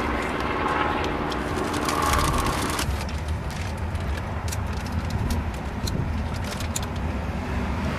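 Steady low rumble of road traffic, with a brief engine-like tone in the first few seconds and scattered small clicks later on.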